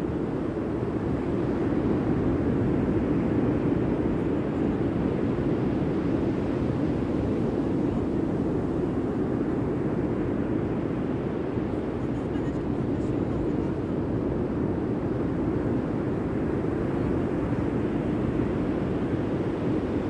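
Steady rushing noise of ocean surf, a low, even sound with no distinct events.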